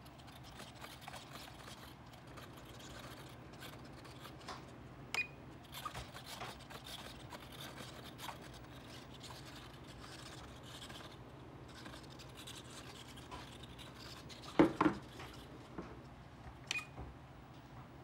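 Handling noise from an EPP foam RC airplane being turned over in the hands: foam and plastic rubbing and scratching, with scattered sharp clicks and a loud double knock about 15 seconds in.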